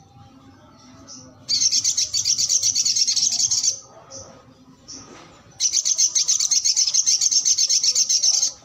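A caged brown-throated sunbird (sogok ontong) singing: two long runs of rapid, high chirping notes, each lasting about two to three seconds, with a few short single calls between them.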